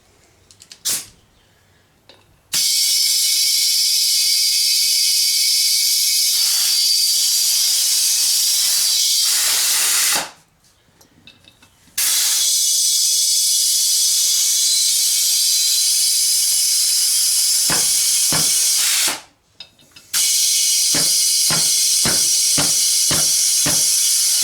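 Compressed air hissing loudly in three long blasts while a mower tire is being aired up, the air escaping around a bead not yet seated on the rim. A run of short knocks sounds under the last blast.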